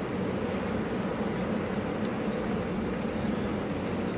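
Steady distant mechanical drone, heard from high above the water, with a constant high-pitched hiss over it.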